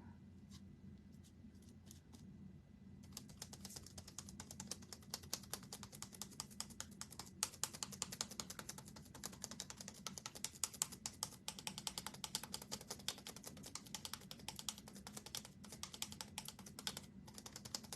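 Typing on a computer keyboard: a few scattered keystrokes, then a fast, irregular run of key clicks from about three seconds in until just before the end. A low, steady hum sits underneath.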